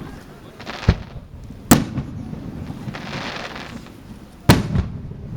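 Aerial fireworks shells bursting: three sharp booms, the second the loudest, each with a rolling low rumble, and a crackling hiss between the second and third.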